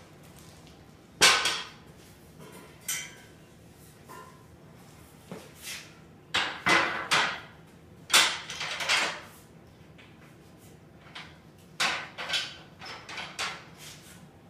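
Metal clanks, knocks and rattles from the steel frame of a GATR yard cart being handled and reconfigured by hand. A single sharp clank about a second in is the loudest, followed by scattered clusters of knocks and rattles.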